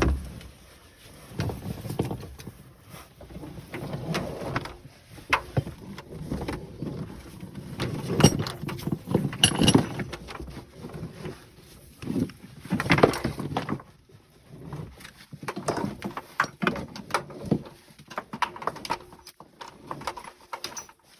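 Handling noise from working a heating cable and plastic pipe fittings at a water-line tee: scattered clicks, taps and rustling, with a few louder scrapes and knocks.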